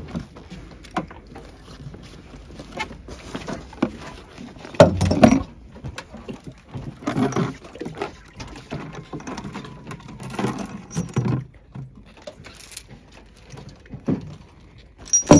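Small metal items jangling and clinking as gear is handled, keys or a lock among them, with several louder knocks and clatters spread through the stretch.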